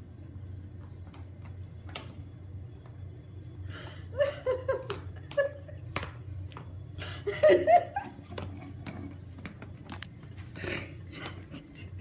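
A person laughing in two bouts of short bursts, the second louder, over a low steady hum with a few faint clicks.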